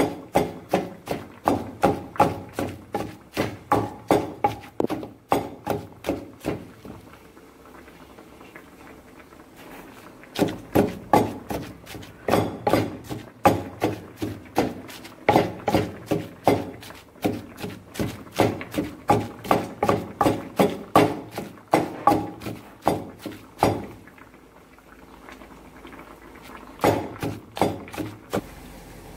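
A wooden pestle pounding fish, red chilli and garlic in a mortar: dull, soft thuds about two to three a second. The pounding comes in three runs, with pauses of a few seconds between them.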